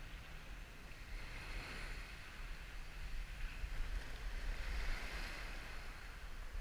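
Small surf waves washing up the beach, a hiss that swells twice, over a low rumble of wind on the microphone.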